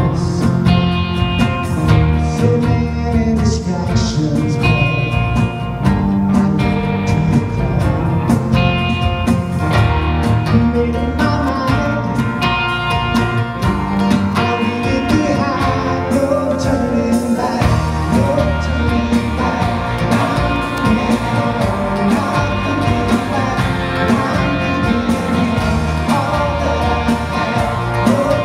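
Live praise band playing a worship song: two acoustic guitars strummed over bass guitar and drums, with a man singing.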